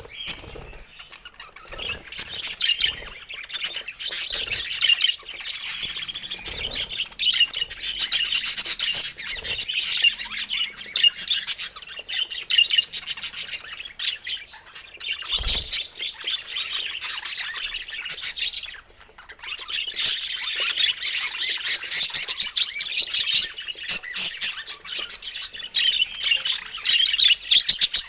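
Budgerigars chattering and chirping rapidly and continuously, with a short lull about two-thirds of the way through.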